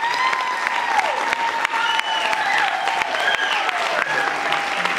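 Audience applauding, a dense clatter of many hands clapping, with a few voices cheering and calling out over the clapping.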